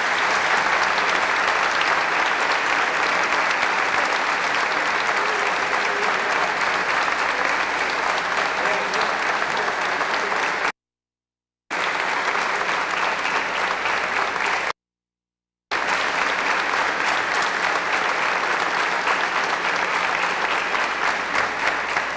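Audience applauding steadily and at length in a large hall. It breaks off twice into about a second of dead silence, a gap in the recording.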